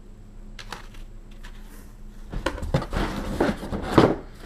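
Handling noise from unpacking a cardboard box: stiff plastic parts and cardboard being moved and set down. A few light clicks come first, then a run of knocks and rustles in the second half, the loudest about four seconds in.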